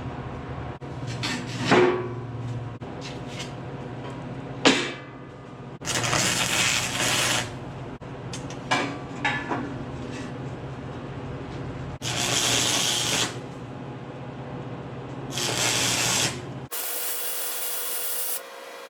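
Power-tool cutting of a steel mobile-home frame: a steady low hum with three bursts of hissing, each lasting a second or two, and two sharp metal knocks. Near the end comes a steady high hiss.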